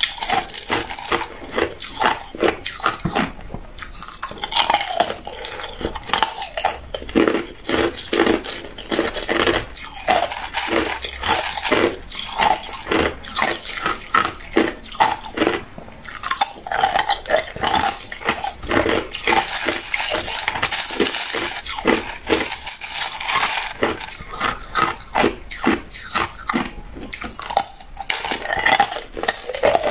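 Hard clear ice being bitten and chewed, a dense run of sharp, irregular crunches and cracks, mixed with ice cubes clinking against a glass bowl as they are picked out.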